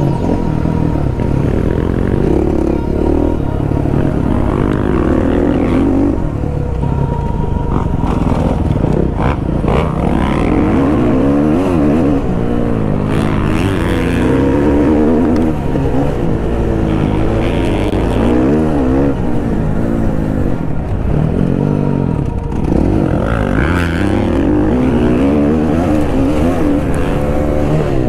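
Dirt bike engine being ridden hard, revving up and dropping back again and again as the rider accelerates out of corners and shifts.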